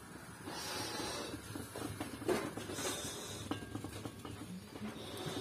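Big lidded aluminium pot of water heating on the stove, making a steady, fairly quiet noise as it nears the boil, with a few faint knocks in the middle.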